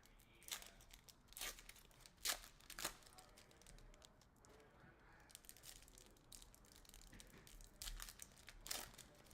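Faint tearing and crinkling of trading-card pack wrappers being ripped open, in about six short rips and rustles spread through, with a lull in the middle.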